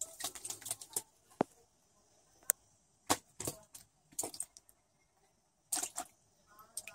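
A cat's paw patting and slapping at the water surface, giving irregular sharp little splashes, some in quick clusters, with short pauses between.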